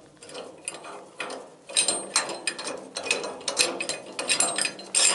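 Metal clicking and rattling of hand tools and steel parts being worked at a boat's prop shaft and coupling, in quick irregular bursts.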